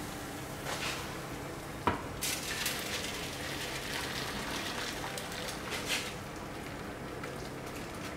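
Water poured in a steady stream from a saucepan into a glass baking dish, filling a bain-marie around a loaf tin. There is one sharp knock about two seconds in.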